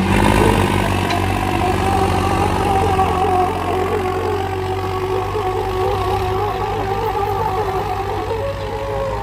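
Diesel engines of two tractors, a John Deere 5210 and a Swaraj 744, running hard and revved up near the start, their pitch wavering as they strain against each other in a tractor tug of war.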